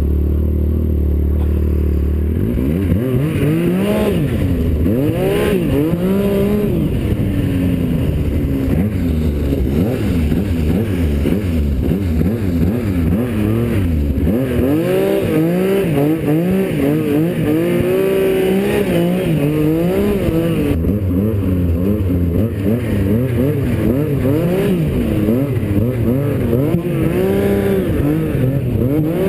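Snowmobile engine running steadily, then revving up and down over and over from about two seconds in as the throttle is worked through deep powder snow.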